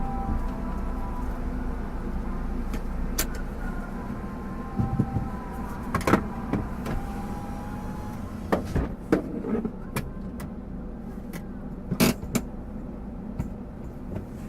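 Car on the move: steady engine and road rumble, with several sharp clicks and knocks, the loudest about six and twelve seconds in.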